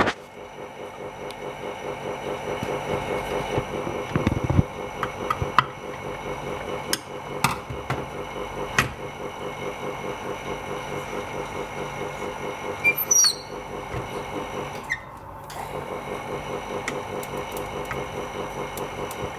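A small machine runs steadily with a fast, even pulsing hum. Scattered clicks and light knocks sit on top, with a low thump about four seconds in and a brief rattle later on.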